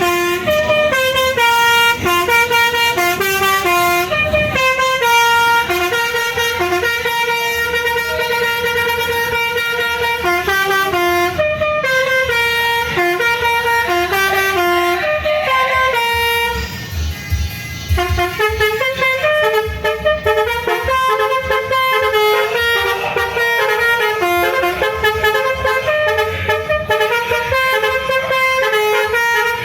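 Telolet multi-tone vehicle horn playing tunes, its horn notes stepping up and down in quick sequences, with a short break in the melody just past the middle.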